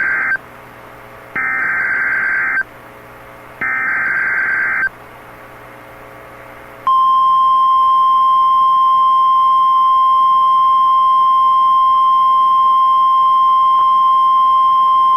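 NOAA Weather Radio Emergency Alert System signal. The tail of one SAME header data burst is followed by two more raspy one-second digital bursts about a second apart. About seven seconds in, the long, steady single-note weather radio alert tone begins, announcing a severe thunderstorm warning.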